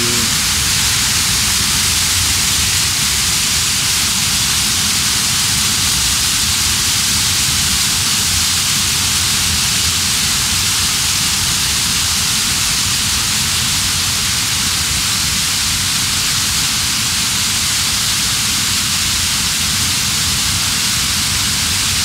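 Small waterfall pouring onto rocks: a loud, steady rush of falling water, a bright hiss over a deep rumble, unchanging throughout.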